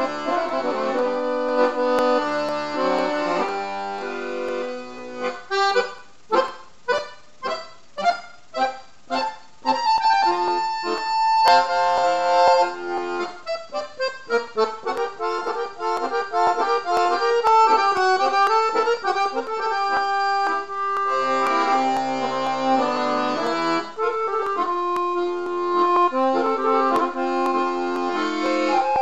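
Accordion music: a tune of held chords under a melody, with a passage of short, detached chords about two a second a few seconds in, followed by quick runs of notes.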